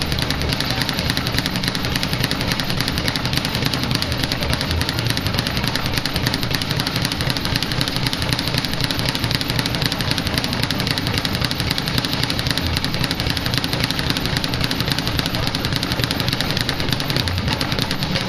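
Speed bag hit nonstop in a fast, even rhythm, rattling back and forth off its rebound platform in a continuous drumroll of rapid impacts.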